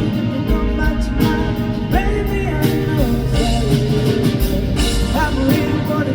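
Live rock band playing a song: a male vocalist singing a melody over electric guitar and a drum kit keeping a steady beat.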